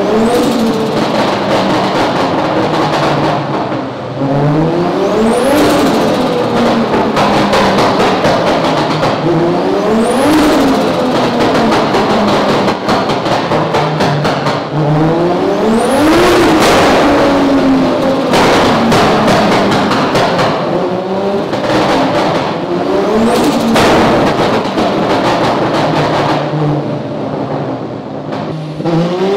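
Toyota 2JZ-GTE straight-six turbo engine revving on a rolling-road dyno, rising and falling in pitch about four times, with a high whistle climbing with each rev and sharp cracks throughout. The engine is being set up and tuned with a fresh-air anti-lag valve.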